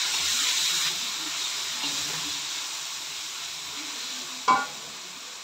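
Chopped tomatoes, onions and spices sizzling in a metal pan as they are stirred with a silicone spatula, the hiss gradually dying down. A brief sharp knock comes about four and a half seconds in.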